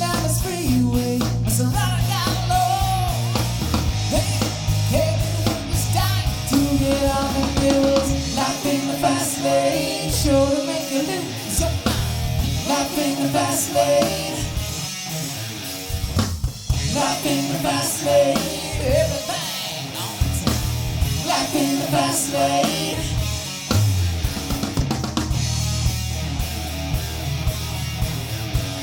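Live rock band playing: electric guitar, bass and drum kit with a steady beat.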